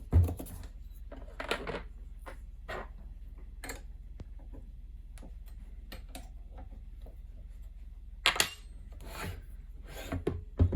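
Scattered metal knocks, clicks and scraping as parts of a toolpost grinder are handled while the spindle is taken out of its housing. The loudest knocks come just after the start and about eight seconds in.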